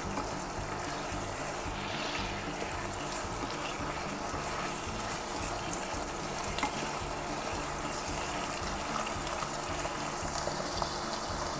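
Saucy chicken liver stir-fry sizzling steadily in a non-stick wok while a wooden spatula stirs it, with a few faint taps of the spatula against the pan.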